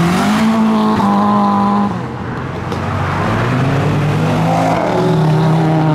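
A car engine revving up hard and holding high revs, then dropping away about two seconds in before climbing again more slowly and holding steady.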